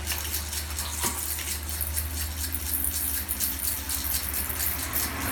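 Dense, fine pattering like falling rain, many tiny clicks without pause, over a steady low hum, given as the sound of rain.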